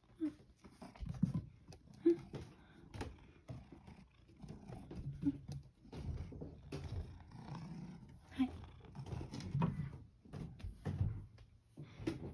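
Footsteps climbing wooden stairs: irregular low thumps and knocks, with rustling and a few short squeaks.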